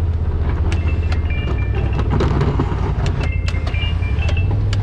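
Polaris RZR side-by-side's engine running with a steady low drone while it drives, with scattered knocks and rattles from the machine.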